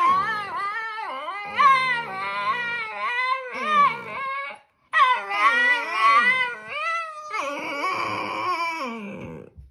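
Two husky-type dogs howling and whining in long yowls that slide up and down in pitch, with one short break a little before halfway through.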